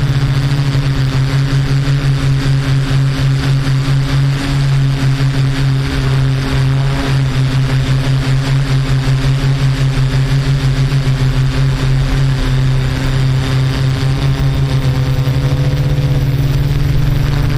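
Yuneec Typhoon Q500 4K hexacopter drone's propellers humming in flight: a steady low hum that pulses about four times a second.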